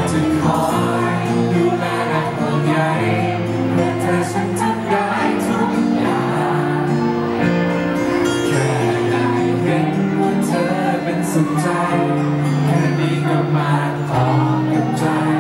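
A man singing a Thai-language song live into a handheld microphone over steady instrumental accompaniment, amplified through a PA.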